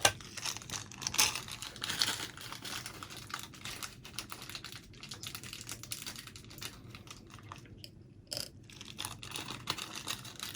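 Small metal 3.5mm bullet connectors rattling and clicking as they are sorted through in a tub: a run of quick, irregular clicks.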